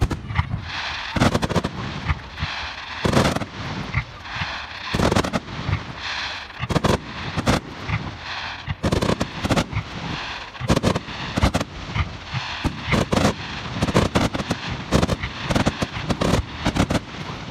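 Fireworks display: aerial shells bursting in a dense barrage, with sharp bangs coming two or three a second and a crackling haze between them.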